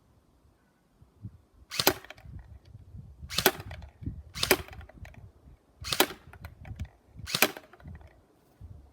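H&K416 airsoft electric rifle firing five single shots, a sharp crack each, spaced about one to one and a half seconds apart.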